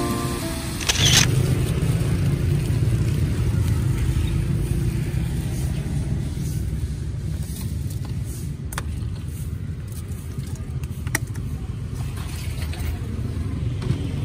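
Steady low rumble of street traffic beside a roadside food stall, with a few sharp clicks. A last few notes of background music end about half a second in.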